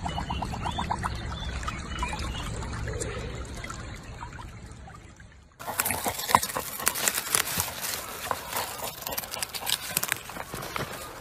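Shallow water gurgling and trickling around a husky-type dog lying in a stream with its muzzle at the surface, with a quick run of bubbling in the first second, fading out about five seconds in. Then a sudden switch to crunching, scraping and rustling as a dog digs in garden soil and bites at a white radish among its leaves.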